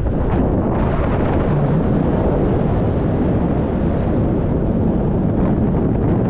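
Steady, loud wind rush buffeting an action camera's microphone as it flies through the air under a paraglider, briefly rising in hiss about a second in.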